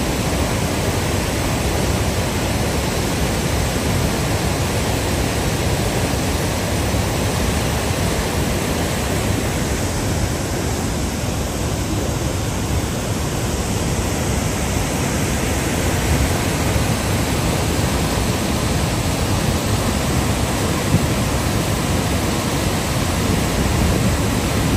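Steady rush of a wide, high-volume waterfall pouring over a ledge into churning white-water rapids.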